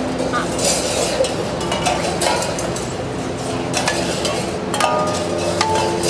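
Tin cans and plastic bottles hung on costumes clinking, scraping and rattling as they are handled and tugged on strings, with a few short squeaky tones near the end.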